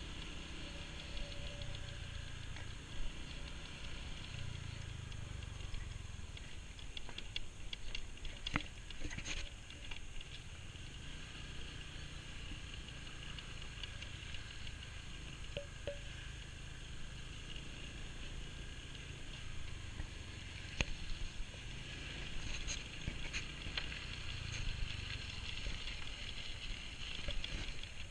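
Small motor scooter running at low speed along a dirt road: a steady engine and road rumble with wind noise, and a few short knocks from bumps about a third of the way in and again later.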